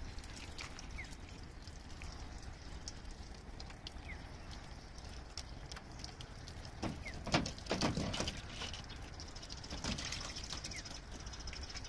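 Bulldog puppy's paws pattering and splashing on a wet plastic pickup bed liner with water and ice left on it, with a cluster of louder thumps and splashes about seven to eight seconds in.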